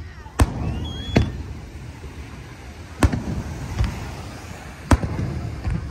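Aerial fireworks shells bursting: four loud, sharp booms a second or two apart, with a few weaker pops and a low rumble between them.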